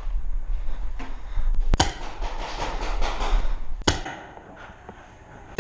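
Two sharp paintball marker shots about two seconds apart, over rustling gear and a low rumble of movement that dies away after the second shot.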